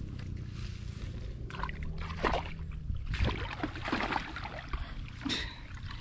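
Shallow water sloshing and splashing in a string of irregular splashes from about a second and a half in, over a low background rumble.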